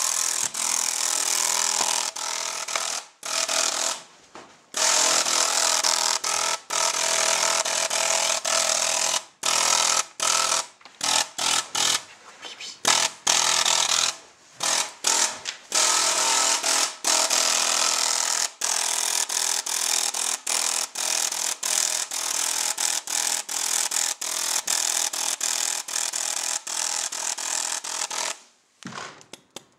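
SL74 electronic paintball marker dry-firing in training mode, in long strings of very rapid shots that stop and start many times.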